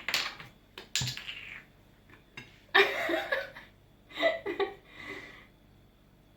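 Two sharp clicks about a second apart, then three bursts of laughter.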